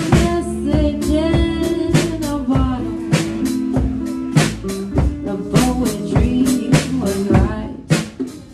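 A live band playing, heard from right beside the drum kit: steady drum and cymbal hits over sustained guitar notes. The playing drops off sharply near the end.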